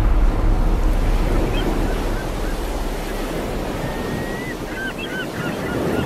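Ocean surf washing in with a low wind rumble that slowly fades. Short bird calls join about a second and a half in and come more often near the end.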